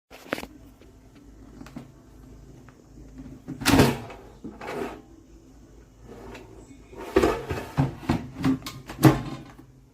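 A series of knocks and clatters from objects being handled and set down. The loudest comes about four seconds in, and several more follow close together near the end.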